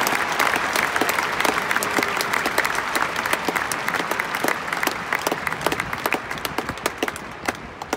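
Stadium crowd applauding, with sharp nearby claps standing out of the general clapping. The applause dies down near the end.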